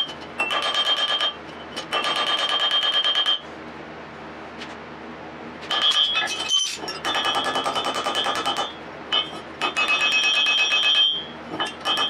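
Power grinder working steel in repeated passes: bursts of a high ringing whine with a fast chattering rasp, each a second or two long, as the tool is pressed on and lifted off. There is a quieter lull of a couple of seconds about a third of the way in.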